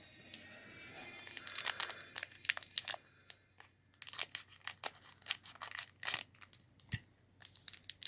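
Foil trading-card pack wrapper crinkling while thick trading cards are slid and flicked through by hand, giving an irregular run of crackles and clicks with short pauses.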